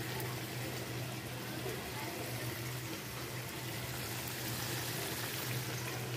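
Chicken curry simmering and sizzling in a kadai on a gas stove: a steady bubbling hiss with a steady low hum underneath.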